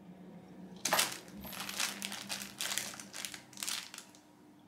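Crinkly rustling of a fabric cat tunnel as kittens scramble over and into it: a run of rustles starting about a second in and dying away near the end.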